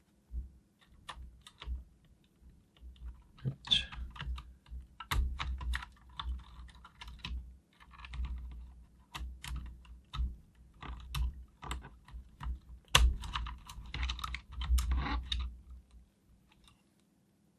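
Irregular plastic clicks and clacks of a mechanical keyboard and its PBT keycaps being handled, with dull knocks against the desk, coming in uneven clusters.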